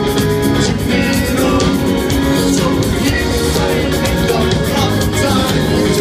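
A rock band playing live, with a man singing over electric bass and guitar.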